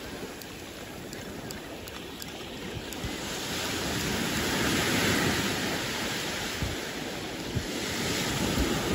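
Small sea waves breaking and washing up a sandy beach, the surf swelling to its loudest about halfway through and then easing off.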